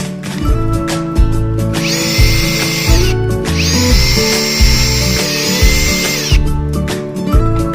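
HiKOKI DV18DBL2 cordless hammer driver drill spun up twice by its trigger, a high whine that rises, holds and falls away each time. The first run is about a second long, about two seconds in, and the second runs nearly three seconds. Background music with a steady beat plays underneath.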